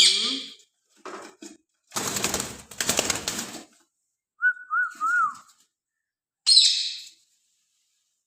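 Ringneck parrots screeching, one sharp high screech at the start and another about six and a half seconds in. Between them come a burst of wing flapping about two seconds in and a short warbling whistle near the middle.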